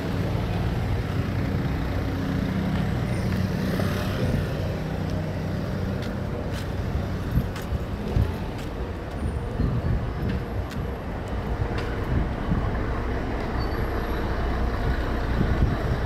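Busy city street traffic. A heavy vehicle's engine hums low and steady close by for the first few seconds, under a constant rumble of passing traffic, with a few short clicks and knocks.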